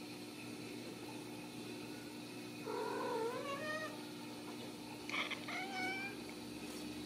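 Ragdoll cat meowing twice: a long meow that dips and rises in pitch about three seconds in, then a shorter, higher meow about two seconds later.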